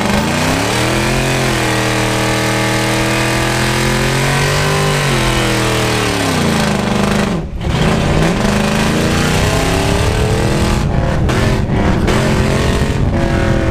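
Pickup truck's Gen 4 6.0-litre LS V8 revving up and held at high revs during a burnout, the rear tyres spinning and smoking. The revs drop suddenly about halfway through, then the engine pulls hard again as the truck accelerates away.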